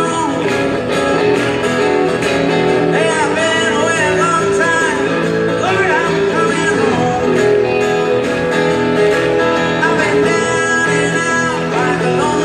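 Live band music: a man singing over acoustic guitar, played loud through a concert sound system.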